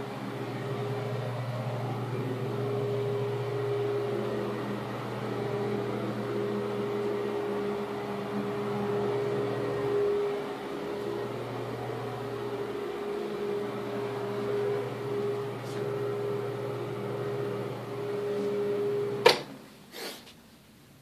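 A steady machine hum from a running motor, with a constant low tone, that stops abruptly with a loud click near the end, followed a moment later by a second, fainter click.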